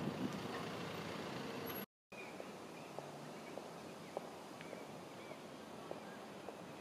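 Steady running rumble of a moving vehicle, then, after an abrupt cut about two seconds in, a quieter steady background with a few faint light ticks and short high chirps.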